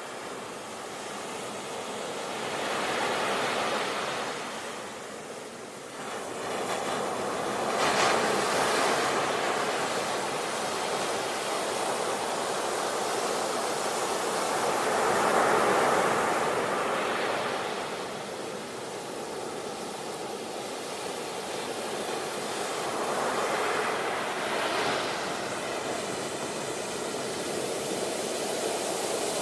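Sea waves breaking and washing on a shore, a steady rush of surf that swells and ebbs every few seconds, with the sharpest crash about eight seconds in.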